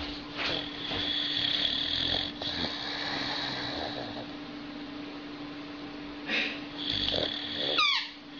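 Boxer dog snoring in its sleep, with slow rasping breaths that swell and fade, and a short high falling squeak near the end.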